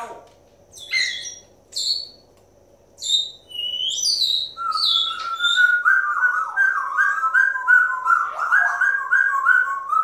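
African grey parrots whistling and chirping. A few short high whistles come first, some sliding down in pitch, then from about five seconds in a fast, unbroken run of repeated warbling notes.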